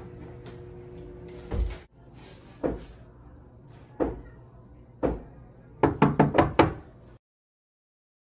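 Knocking on a wooden door: a thump, then three single knocks about a second apart, then a quick run of about seven knocks that cuts off abruptly.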